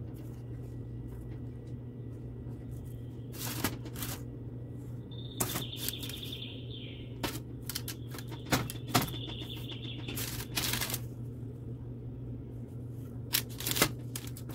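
A hand handling baked pastries on a parchment-lined baking tray: scattered soft taps, rustles and clicks over a steady low hum.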